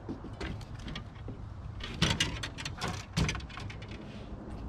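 Clicks and rattles of hands and tackle working a hook out of a freshwater drum that has swallowed it. They come in a cluster about two seconds in and another just past three seconds.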